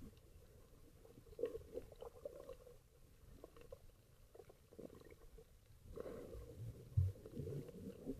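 Muffled underwater water noise heard through a submerged camera's microphone: low gurgles and scattered faint knocks of moving water, with a louder low bump about seven seconds in.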